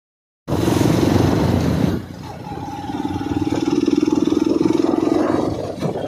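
Motorcycle engine running at a steady cruising pace, with wind rushing over the microphone. The wind is loudest at first, then eases, leaving the engine's steady pulsing note clearer.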